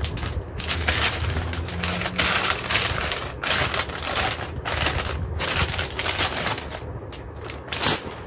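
Clear plastic bag crinkling and rustling as a chair part is pulled out of it. The crackling is dense most of the way and eases off near the end.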